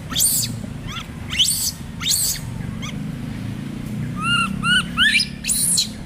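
A monkey giving a series of short, high-pitched squeals, each rising and falling, with a quicker run of shorter chirps about two-thirds of the way through.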